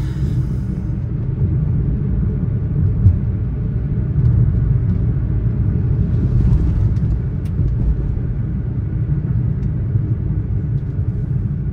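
Steady low rumble of a car being driven, engine and road noise heard from inside the cabin, with a few faint clicks.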